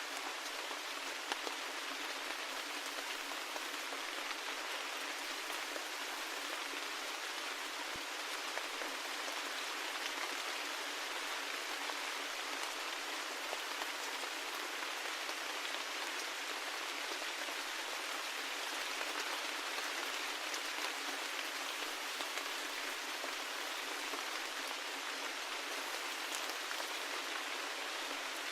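Steady rain falling: an even hiss with a few faint drop ticks scattered through it.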